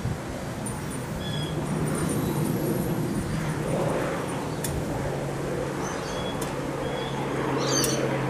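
Wind gusting in surges over the microphone, with a steady low hum underneath and a few faint short high chirps.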